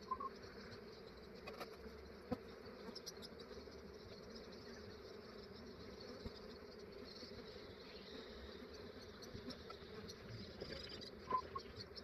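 Honey bees of a freshly caught swarm buzzing steadily around the entrance of a swarm trap, a low continuous hum, with one sharp click about two seconds in.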